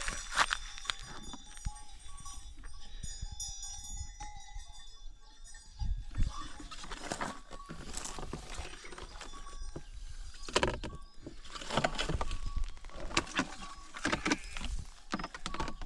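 Sheep bells on a flock clanking and tinkling in irregular clusters, busier in the second half.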